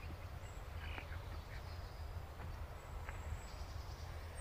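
Quiet outdoor garden ambience: a steady low rumble with a few faint, short chirps or ticks scattered through it.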